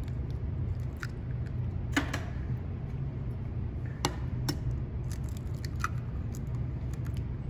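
Eggs tapped and cracked open over a glass mixing bowl of brownie batter: a few sharp taps of eggshell, spaced a second or two apart, over a steady low room hum.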